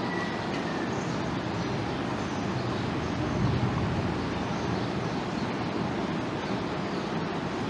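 Steady low background rumble and hiss, swelling briefly about three and a half seconds in.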